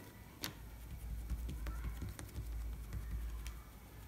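Fingers and palm pressing a disc of stuffed kachori dough flat on a wooden tabletop: a few light taps with soft rubbing and a low rumble underneath.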